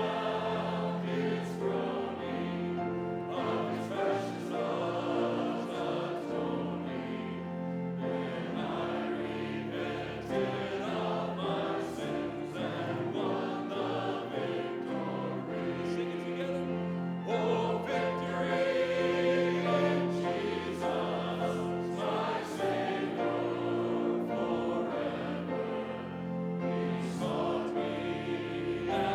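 Many voices singing a hymn together over instrumental accompaniment, in long held chords that change every few seconds.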